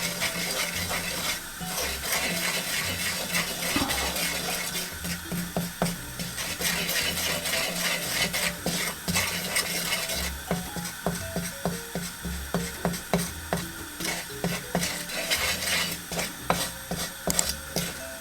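A spoon stirring curry powder as it browns in hot oil in a pot, scraping and knocking against the pot again and again, over a light sizzle. The knocks come faster, about two or three a second, in the second half.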